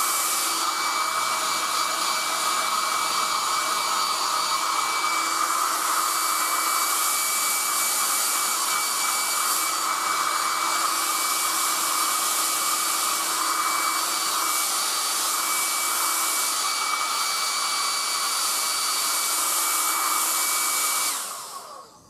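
1980s Black & Decker Stowaway 1200 travel hairdryer blowing on full heat and full speed, a steady rush of air with a faint steady whine in it. It cuts off near the end, the sound dying away over about a second.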